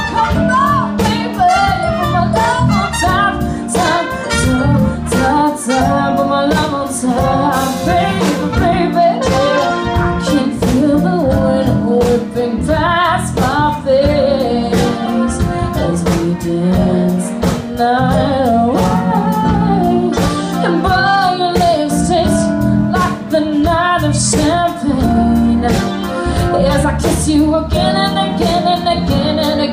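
A woman singing a song with guitar accompaniment, her voice wavering in pitch on held notes.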